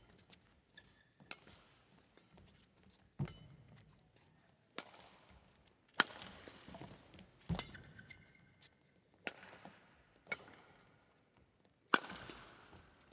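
Badminton rally: about nine sharp racket strikes on the shuttlecock, roughly every one to two seconds, each with a short echo in the hall. Short squeaks of court shoes and footsteps come between the strikes.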